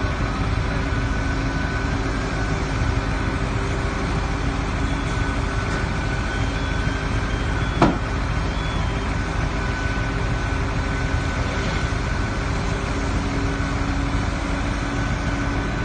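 Fire apparatus engines running steadily, a constant engine drone with a few held tones. A brief sharp click about eight seconds in.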